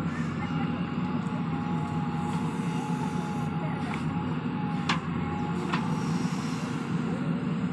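Diesel engines of a JCB 3DX backhoe loader and a tractor running steadily, with a thin steady whine over the rumble. A few sharp knocks come between about four and six seconds in, as the backhoe bucket swings over and dumps soil into the tractor trolley.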